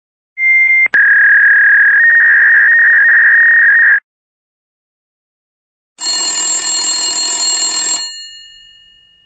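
Fax modem handshake. A brief high answer tone and a click lead into about three seconds of a harsh, warbling data tone over hiss. After a two-second pause comes a second two-second burst of hissing, multi-tone data noise that fades away.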